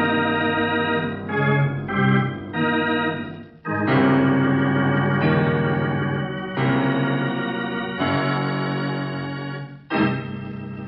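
Organ music bridge from a radio drama: a series of sustained dramatic chords, changing every second or so, with fresh loud attacks about four seconds in and again near the end. It is the act-ending music curtain before the break.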